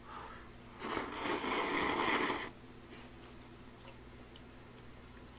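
A man slurping a chopstick-load of noodles into his mouth: one continuous slurp starting about a second in and lasting about a second and a half.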